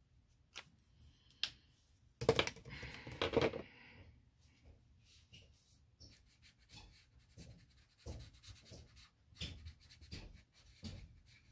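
Small scratches, taps and rubbing of a hand and painting tool working on paper on a table, with a louder clatter about two seconds in.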